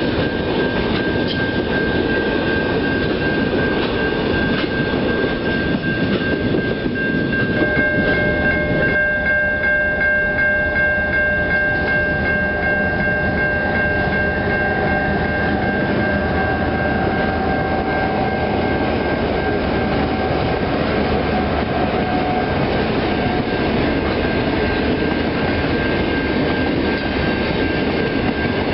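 Diesel-hauled grain trains passing at close range: a continuous rumble and rattle of wagons on the rails, with a steady high tone throughout. About eight seconds in, several more steady tones join and fade out again.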